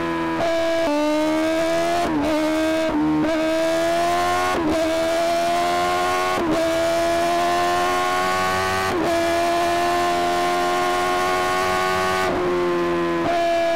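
Sportbike engine at high revs under hard acceleration with wind rush, its pitch climbing steadily and dipping sharply for a moment several times, as at gear changes.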